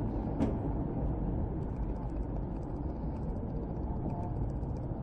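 Steady low outdoor rumble, such as wind on the microphone or distant traffic, with a brief click about half a second in.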